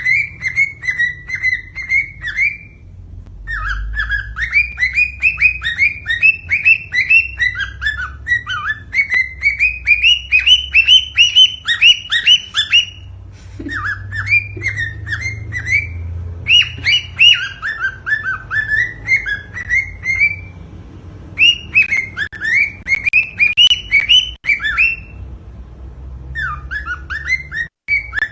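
Cockatiel singing: quick runs of short chirping whistles, several notes a second, in phrases of a few seconds with brief pauses between them, the call used to stimulate cockatiels to breed.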